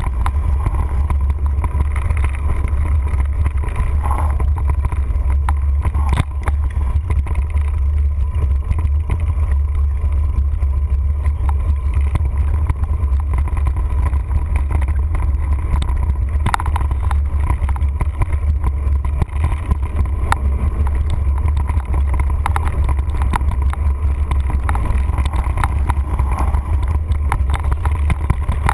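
Mountain bike ride on a dirt trail heard from a camera carried on the bike: a steady low rumble of wind and trail vibration on the microphone, with scattered knocks and rattles as the bike goes over bumps.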